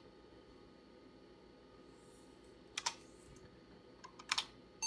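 Two key presses on the IBM 5150's keyboard, one about three seconds in and another near the end, entering a menu choice, over a faint steady hum.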